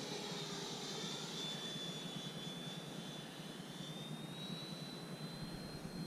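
Freewing L-39 Albatros RC jet's 80mm electric ducted fan whining in flight, its pitch dipping slightly and then rising about four seconds in.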